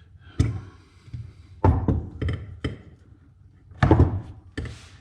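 Irregular knocks and clunks of metal engine parts and hand tools being handled while fuel injectors are taken out of an LS3 intake manifold: one about half a second in, a quick run of four in the middle, and the loudest pair near the end.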